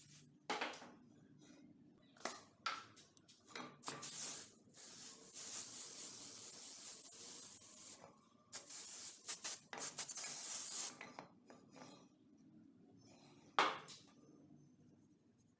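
Aerosol spray can hissing as a coating goes onto a wooden axe handle: several short bursts, then two long sprays of a few seconds each. A single sharp knock comes near the end.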